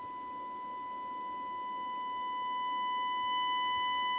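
Steady 1 kHz test tone with faint overtones, coming through a Tram D12 CB radio's receiver audio. It grows slowly louder as the receiver's IF coils T4 and T5 are tuned for maximum output during alignment.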